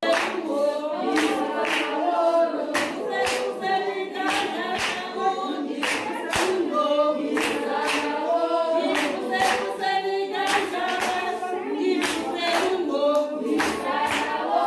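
A group of women singing together, with steady hand clapping at about one and a half claps a second.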